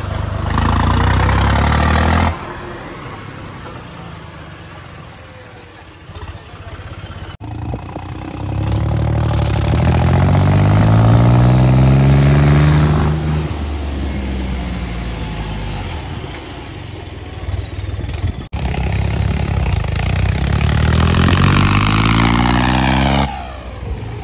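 Diesel engines of modified John Deere tractors revving hard in several short runs, the engine note climbing steeply as each tractor accelerates. A high whistle falls away after the first burst, and the sound breaks off abruptly between runs.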